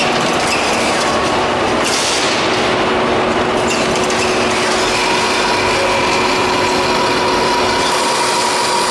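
Automatic carton packing line machinery running: conveyors, packing and strapping machines making a steady, dense mechanical din with a faint steady hum tone, and a few short hissing surges in the first half.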